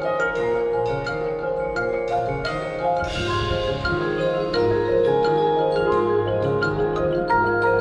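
Marching band playing its field show, with the front ensemble's mallet percussion (marimba and vibraphone) ringing out struck notes over sustained chords. A brighter swell comes in about three seconds in.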